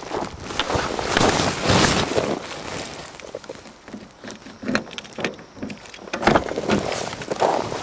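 Handling noise: a winter jacket rubbing and rustling against the camera's microphone, with footsteps crunching in snow.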